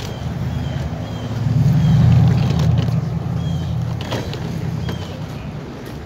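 A motor vehicle's engine rumbling past on a city street, growing louder about a second and a half in and then fading.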